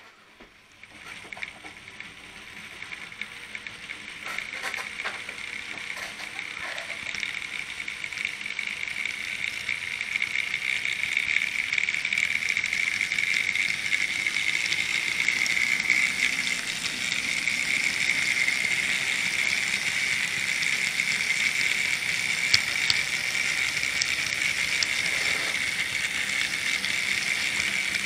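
N gauge model locomotive running along the track: the small electric motor's steady whine with the rattle of wheels on rail. It builds up over the first ten seconds or so as the train gathers speed, then runs steadily, with a few light clicks along the way.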